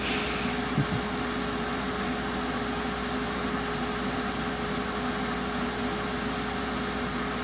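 Cooling fan of a SIP HG2300DV inverter welder running steadily, a continuous whirr with a steady hum tone; a soft knock about a second in.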